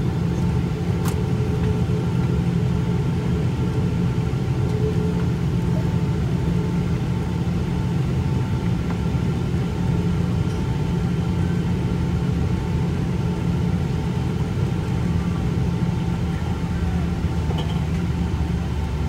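Cabin noise of a Boeing 777-200ER taxiing, heard from a window seat over the wing: a steady low rumble from its Rolls-Royce Trent engines at low power and the wheels rolling on the taxiway, with a few faint steady whining tones above it.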